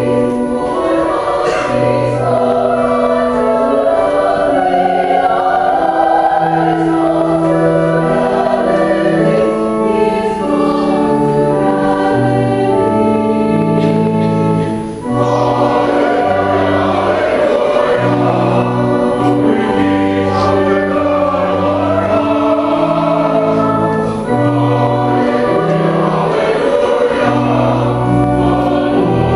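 Church choir singing a hymn anthem with organ accompaniment, the sound dipping briefly about halfway through between phrases.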